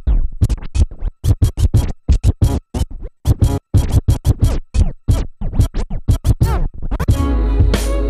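A music loop cut up by the Flex Beat plugin's DJ scratch-pattern effects into rapid, stuttering scratch strokes broken by short gaps. About seven seconds in, the loop plays through more fully, with held notes.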